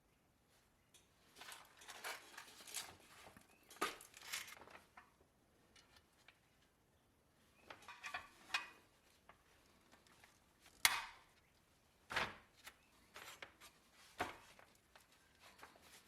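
Intermittent work noises: short scraping and rustling sounds, then a few sharp clicks or taps.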